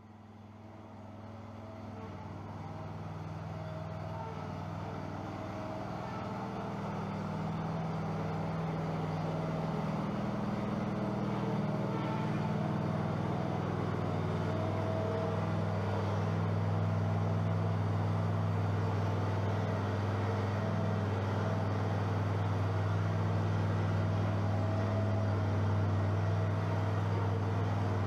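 Stand-on commercial lawn mower's engine running steadily while the mower is driven slowly, growing louder over the first fifteen seconds or so.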